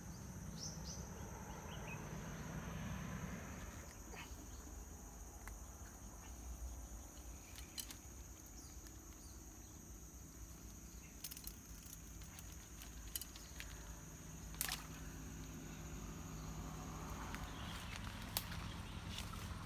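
Insects droning steadily with one high tone over a low rumble, broken by a few sharp clicks, the loudest about three-quarters of the way through.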